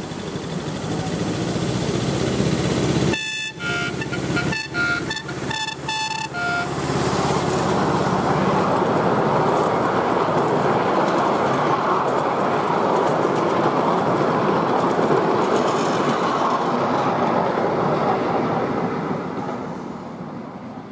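Miniature railway locomotive's horn sounding a quick run of short toots about three seconds in. The train then runs past on the narrow-gauge track, a steady rumble that fades away near the end.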